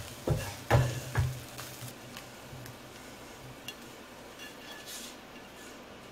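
Wooden spatula stirring and knocking against a non-stick pan of dry-fried spiced shredded coconut, three knocks in the first second and a bit, then only a faint steady hiss.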